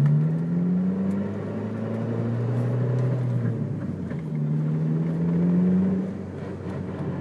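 2002 Ford Focus engine pulling under acceleration, its note rising, dropping about four seconds in, rising again and then falling away near the end.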